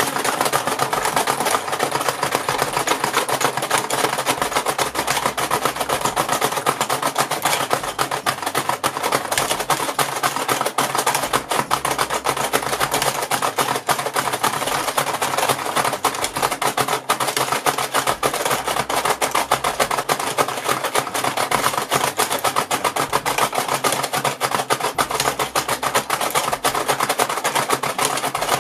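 Plastic push buttons of a Paw Patrol pup-racing toy game hammered by hand without pause: a fast, continuous plastic clatter as the two pup figures are driven along their tracks.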